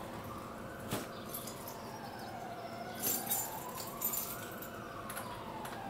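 A siren wailing, its pitch slowly rising and falling every few seconds, with a few sharp clicks.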